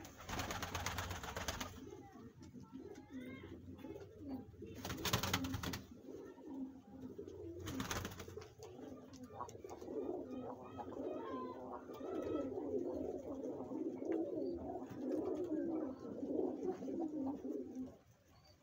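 A flock of domestic pigeons, many of them fantails, cooing together in low, overlapping coos that grow denser through the second half. A few short rushing bursts of noise break in near the start and again around five and eight seconds.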